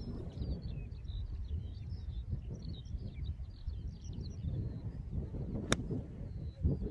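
A single sharp click of an iron striking a golf ball near the end, over wind rumbling on the microphone. Small birds chirp during the first few seconds.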